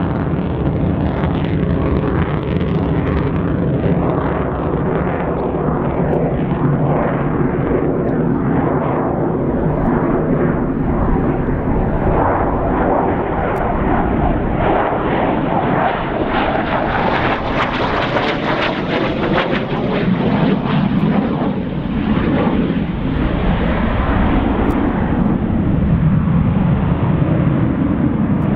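Saab 37 Viggen's Volvo RM8 afterburning turbofan, heard as continuous jet noise while the fighter flies overhead. About two-thirds of the way in it swells brighter and hissier, then settles into a deeper rumble near the end.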